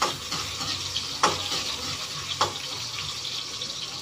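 Ginger sizzling in hot oil in a wok, stirred with a metal spatula that scrapes and knocks against the pan three times.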